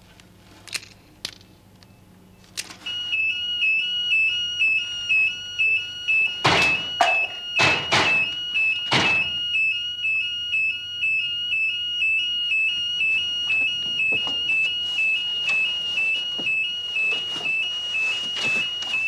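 A few light clicks, then about three seconds in an electronic intruder alarm goes off: a loud, high two-tone siren switching between two close pitches about twice a second. Three heavy thuds come between six and nine seconds in.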